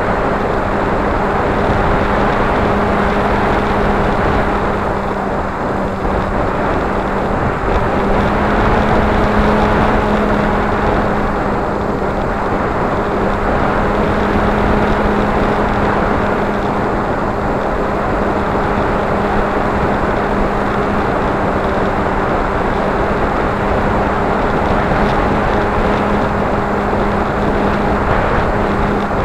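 Steady hum of a flying wing's motor and propeller, picked up by the action camera on board, under heavy rushing wind noise on the microphone.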